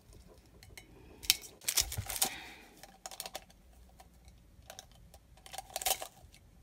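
Heat tape and plastic shrink wrap being peeled and crinkled off a ceramic sublimation mug by gloved hands: irregular sharp clicks and crackles, coming in two flurries, one about a second and a half in and one near the end.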